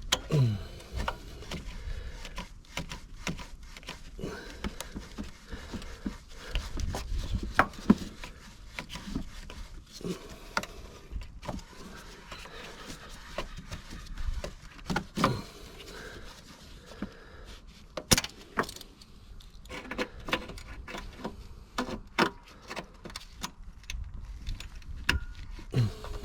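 Mole grips clamped on a rusted, broken battery-tray stud as it is worked back and forth in its seized thread: irregular metallic clicks, clinks and scrapes, with an occasional short squeak.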